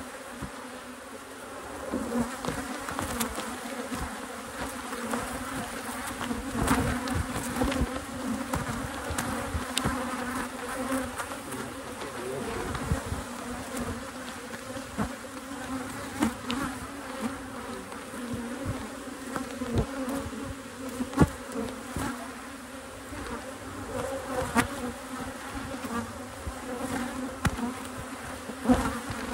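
Honeybee colony buzzing steadily in a low hum, with scattered knocks and clicks; the loudest knock comes about two-thirds of the way through.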